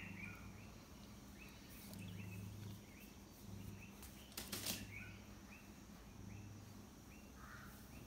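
Quiet outdoor ambience: small birds chirping faintly and repeatedly, a low hum that comes and goes, and a brief rustle about halfway through.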